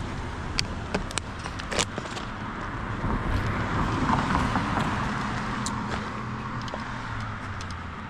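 A car passing on the street, its road noise swelling to a peak about four seconds in and then fading, over steady street noise.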